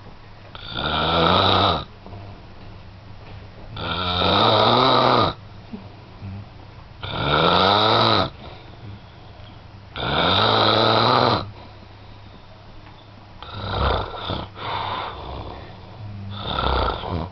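Loud snoring: four long snores about three seconds apart, each lasting over a second with a pitch that bends, then two weaker, shorter snores near the end.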